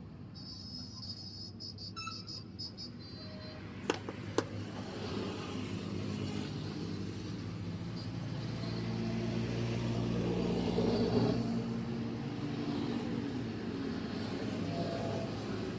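A motor vehicle engine running steadily, swelling louder toward the middle and easing off again, with two sharp clicks about four seconds in.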